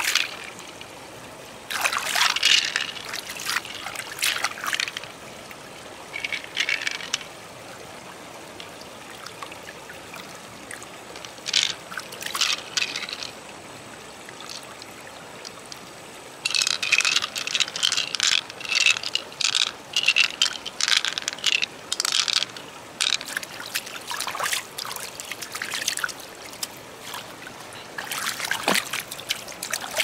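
Water splashing and trickling in irregular bursts as hands scoop water over a large opened shell and it runs off, with quieter stretches in between. The splashing is busiest in the second half.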